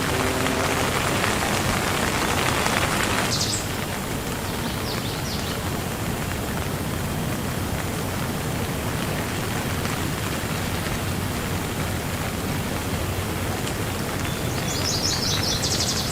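Steady rain falling, a dense even hiss; about three seconds in it drops abruptly to a softer, duller rain sound. A few short high chirps come through near the start and a quick run of them near the end.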